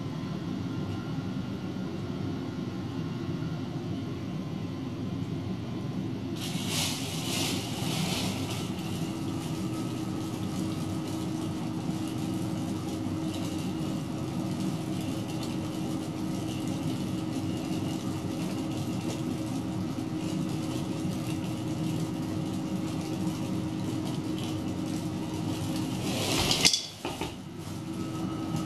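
PC cooling fan fitted with a 3D-printed static-pressure boost adapter, running steadily as it blows air into a large plastic bag: a steady whir, joined by a steady tone about a third of the way in. Plastic rustles briefly about a quarter of the way in and again, louder, near the end.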